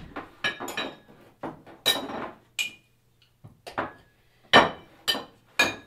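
Glassware and crockery being handled to set out a drink: a dozen or so sharp clinks and knocks, some ringing briefly, the loudest about four and a half seconds in.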